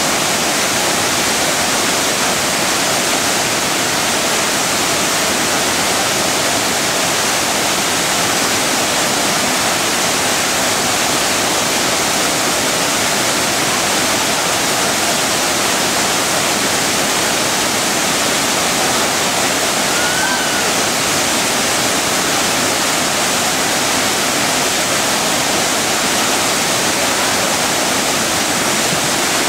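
A waterfall's falling water, a loud steady rush that does not change.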